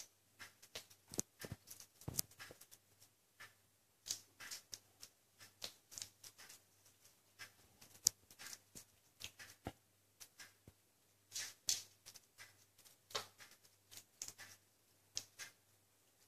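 A kitten chewing crisp radicchio leaves: faint, irregular crunches, a few a second with short pauses between.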